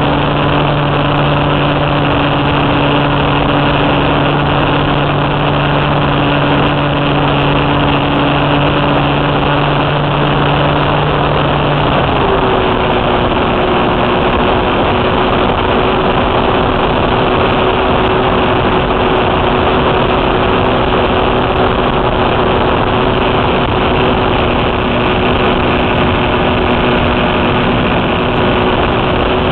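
A small airplane's engine running steadily in flight, under a constant rush of air noise. Its note changes about twelve seconds in and then holds steady again.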